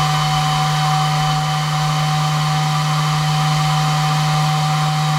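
Rule 24-volt marine exhaust blower (3-inch inlet and outlet, 135 CFM) running steadily: a constant low hum and a fainter higher whine over the rush of moving air.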